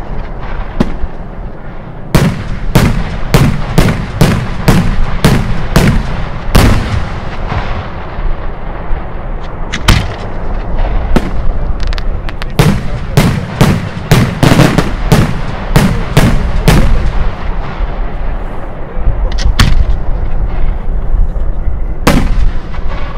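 Italian cylindrical aerial firework shells going off in a rapid series of sharp bangs and booms, at times about two a second, over a continuous low rumble. The reports come densely in two runs, with sparser single bangs between.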